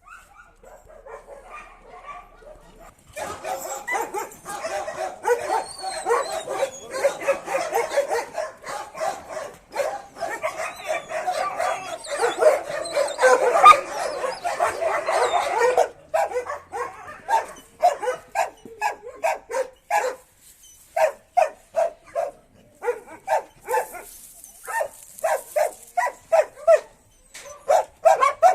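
Several dogs barking: a dense run of overlapping barks starts about three seconds in, then after the midpoint it thins to quick runs of separate barks.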